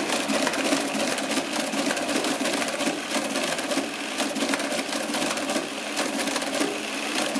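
Marchant ACT-10M proportional-gear mechanical calculator working through an automatic division: a fast, continuous mechanical clatter of rapid clicks as its gears cycle and its carriage steps across.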